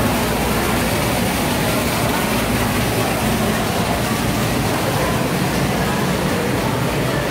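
A column of water falling from an overhead pipe and splashing into a pool below, a steady, even splashing noise.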